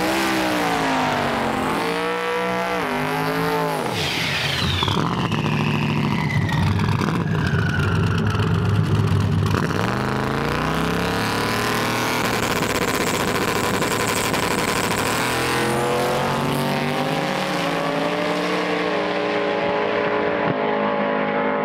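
Drag-racing engines revving hard on the starting line, then a car launching and accelerating away down the strip, its pitch falling as it pulls away. More engine revving follows, settling into steadier running near the end.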